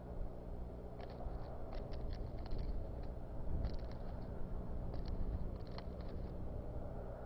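Bald eagle working sticks in its nest: quick runs of twig crackles and snaps come in several bunches, over a steady low electrical hum.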